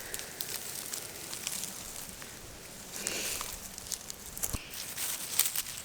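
Dry strawberry plants and dry soil crackling and rustling as they are pulled up by hand, with one soft knock about four and a half seconds in.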